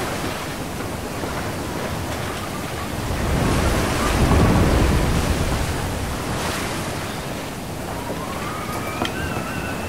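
Storm at sea on a ship's deck: steady rush of rain and wind, with a wave crashing over and surging about four seconds in. Near the end a higher-pitched tone rises over the noise.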